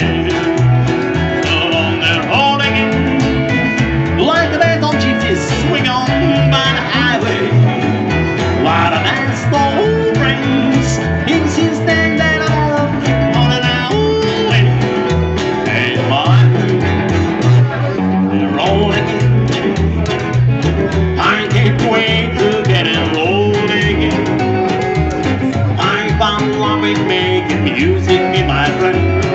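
Live band playing a song: a man singing over a strummed acoustic guitar, with an upright double bass and an electric guitar.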